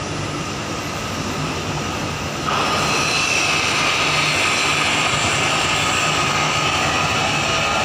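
Ship's engines and machinery running steadily with a faint high whine. They get louder and brighter about two and a half seconds in, as the ship manoeuvres.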